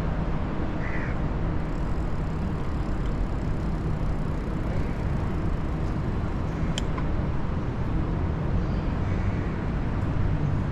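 Steady city road-traffic noise, mostly a low rumble, with one sharp click about seven seconds in.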